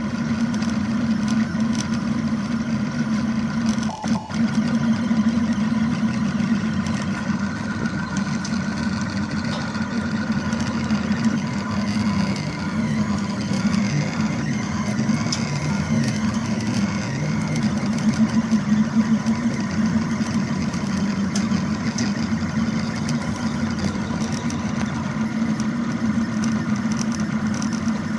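Cherry Pi IIIS delta 3D printer running a print, its stepper motors humming and whining in tones that shift as the arms move the print head. The sound briefly dips about four seconds in.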